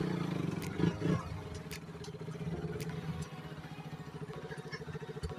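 Motorcycle engine running at low speed on a rough dirt track, a steady drone that eases off over the first couple of seconds and then holds, with a few light clicks.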